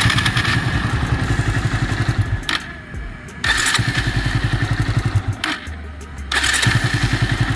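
Bajaj Avenger 220 motorcycle's electric starter cranking the engine in three bursts of about two seconds each, the fast even pulses of each burst cutting off abruptly. The starter has just been fitted with a new bearing kit, and the clunking and grinding it made before is meant to be gone.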